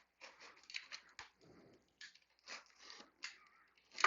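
Cardboard shipping box being worked open by hand: a string of short, irregular scrapes and tears of packing tape and cardboard.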